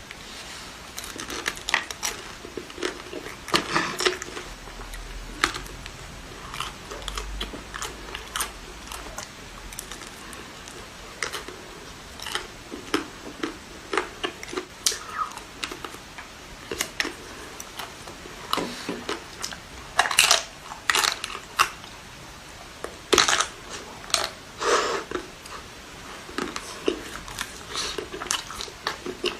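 Close-miked eating of ice cream: irregular bites, chewing and wet mouth clicks, with a few louder crunchy bites in the second half.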